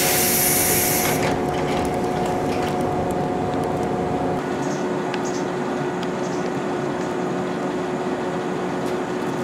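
Pneumatic sliding doors of a JNR 115-series electric train closing with a loud hiss of air for about a second, over the steady electrical hum of the train standing at the platform. The hum gives way about four seconds in to quieter noise with a few light clicks.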